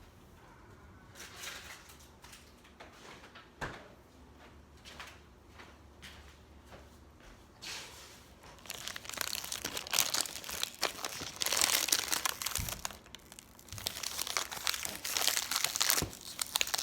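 Packaging being handled: a few faint clicks, then loud crinkling and crumpling from about halfway through.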